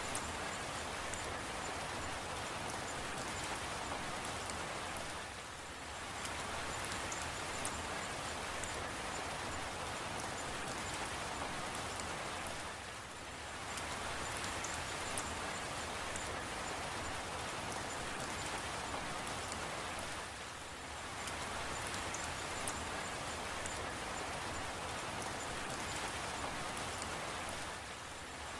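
Steady rain falling, an even hiss of drops, dipping briefly in level about every seven to eight seconds.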